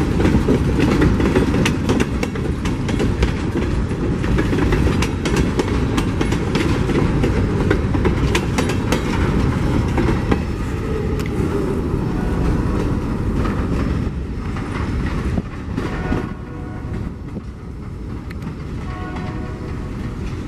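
Freight train boxcars rolling past at close range: a steady rumble with rapid wheel clicks over the rail joints. The sound dies down as the last car moves away, and near the end a pitched warning signal with several tones comes in.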